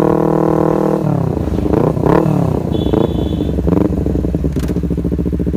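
Honda CBR250RR engine through an R9 H2 aftermarket exhaust, held at high revs, then dropping about a second in and blipped several times in quick succession, each blip rising and falling in pitch, before settling to a lower steady rev near the end.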